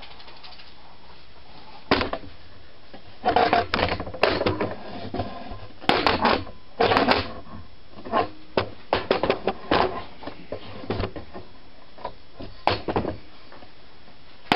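Irregular clicks, knocks and clatter, some in quick clusters: handling noise from the camera being worked loose from its tripod.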